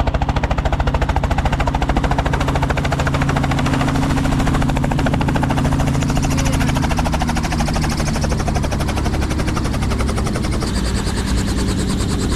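Small helicopter touching down and then running on the ground: a fast, steady chop from the main rotor over the low hum of its engine, with the engine note changing about seven seconds in once it has settled on the pad.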